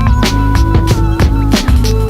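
Background music with a steady drum beat, sustained synth or keyboard notes and a bass line.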